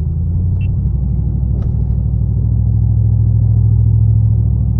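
Vehicle's engine and road rumble heard from inside the cabin while driving, a steady low drone that grows gradually louder as it picks up speed.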